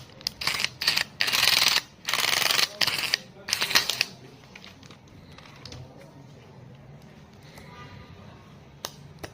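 A run of short rustling, scraping bursts, about seven in the first four seconds, then quieter, with a single sharp click near the end.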